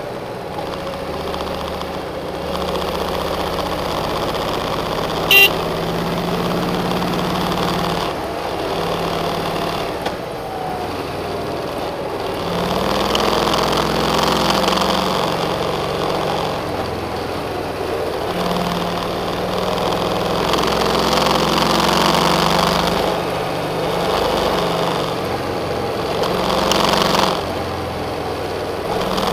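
Car engine and tyre noise heard from inside the cabin while driving, with the engine note stepping up and down several times. A brief sharp click sounds about five seconds in.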